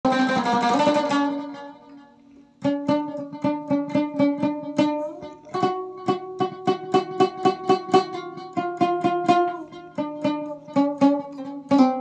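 Watra, a Moroccan plucked lute, playing a folk tune: a ringing chord that dies away, a brief pause, then a quick run of repeated plucked notes at about four or five a second.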